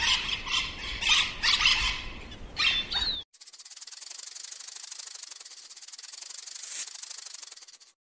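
Budgerigars chattering, with a short descending chirp near the end. After about three seconds this cuts off and gives way to a fast, even, high rasping buzz of rapid clicks lasting four to five seconds.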